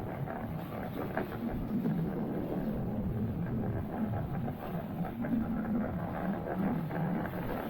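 Suzuki four-stroke 60 hp outboard driving a small boat, a steady engine note under wind and water noise.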